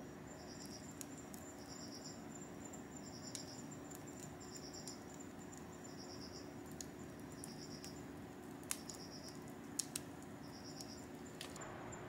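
A cricket chirping in short, evenly spaced trills, about one every three-quarters of a second, over a small wood fire that gives off occasional sharp pops and crackles, the loudest pair about nine and ten seconds in.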